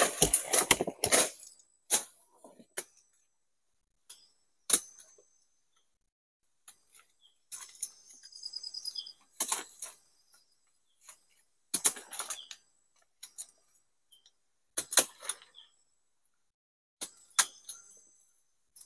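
Long palm leaves rustling and crackling in short, separate bursts as they are handled and hung over the wooden poles of a shelter wall, with sharp clicks and silent gaps in between.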